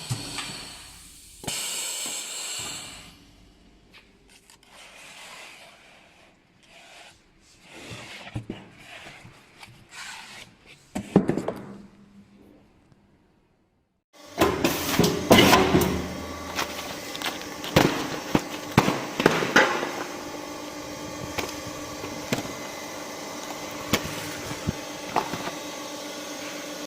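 A paper honeycomb panel cutting and hole-punching machine working: hissing and scattered strokes, then repeated sharp clacks over steady tones from about halfway in. In the second half the steady tones may be background music.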